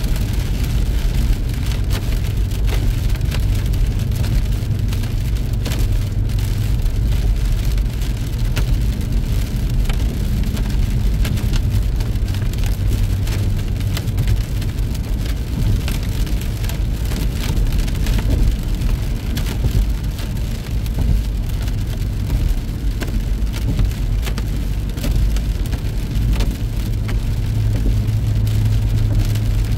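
Rain falling on a car driving along a highway: many quick drop ticks over a steady low rumble of engine and tyres on the wet road.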